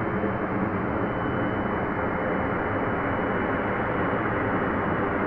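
Small gas turbine of a radio-controlled sport jet running steadily, a constant rushing roar with a faint thin whine above it.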